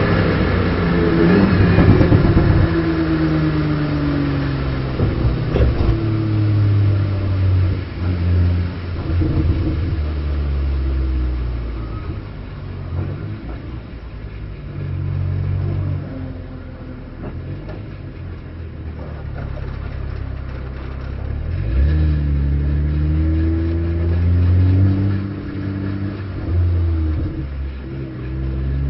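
BMW M240i Racing Cup's turbocharged straight-six engine heard from inside the race car's cockpit, its pitch dropping steeply at the start as it slows and downshifts, then repeatedly climbing under acceleration and falling off through gear changes and braking.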